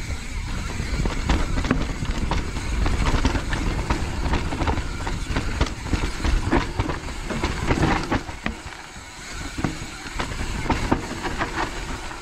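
Mountain bike clattering and rattling as it rides over roots and small drops on a wet trail, with a steady low rumble of wind on the microphone. It eases for a moment about three quarters of the way through.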